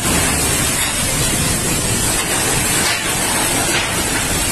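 Strong storm wind and heavy rain: a loud, steady rushing noise.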